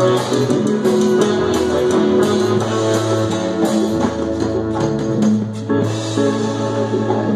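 A live cumbia band playing an instrumental passage: electronic keyboard notes over steady low notes, with drums and frequent cymbal hits.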